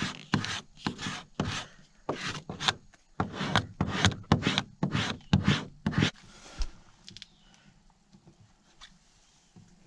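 Rhythmic hand scraping or rubbing strokes, about two a second, which stop suddenly about six seconds in.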